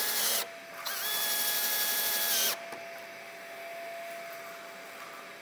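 Cordless drill driving pocket-hole screws into a joint of wooden window trim. A run ends about half a second in, and after a short pause a second steady whine lasts about a second and a half and stops abruptly. A faint steady hum remains.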